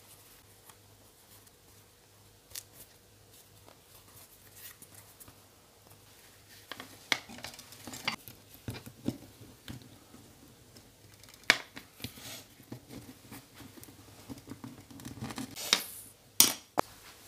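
Hands working a piece of leather and small metal snap hardware on a work table: quiet rubbing and scraping with scattered sharp clicks and taps, the loudest about seven, eleven and a half and sixteen seconds in.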